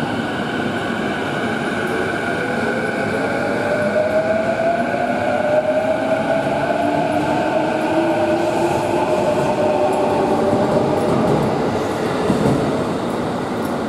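JR East E233 series electric train pulling out and accelerating. The inverter and traction motors whine and rise in pitch over the steady rumble and clatter of the wheels on the rails.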